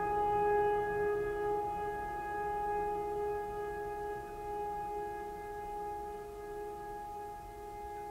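Ambient drone music of several held, steady tones, slowly fading.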